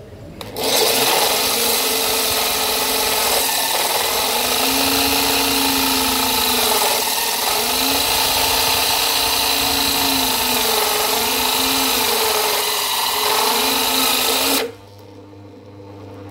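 Electric drill spinning a hole-saw bit as it bores into a granite slab: a steady motor whine with gritty grinding of stone. It starts about half a second in and cuts off near the end.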